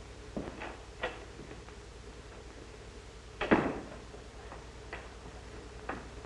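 A few light knocks, then one louder thud about three and a half seconds in and two fainter knocks after it, over the steady hum and hiss of an old film soundtrack.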